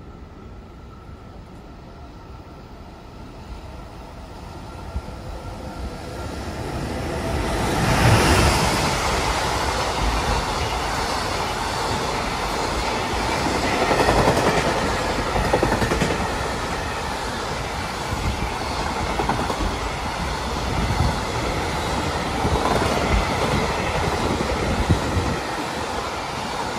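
JR Freight container train hauled by an EF210 electric locomotive approaching and running through the station. The sound swells from about four seconds in and is loudest about eight seconds in as the head of the train passes, then holds a steady rumble of container wagons rolling over the rails.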